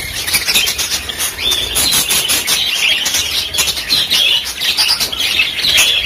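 Budgerigars chattering in continuous warbling chirps, with wings fluttering as the birds fly about the cage.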